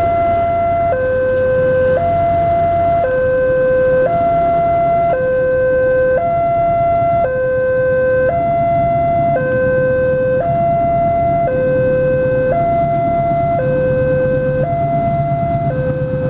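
Railway level-crossing warning alarm: a newly fitted electronic alarm sounding a steady hi-lo two-tone signal, switching between a higher and a lower tone about once a second, the warning that a train is approaching.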